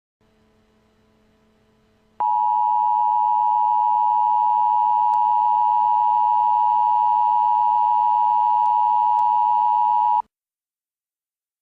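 Emergency Alert System attention signal: the steady two-tone alert, 853 and 960 Hz sounding together, starts suddenly about two seconds in after a faint hum, is held for about eight seconds, then cuts off abruptly. It announces that an emergency voice message follows.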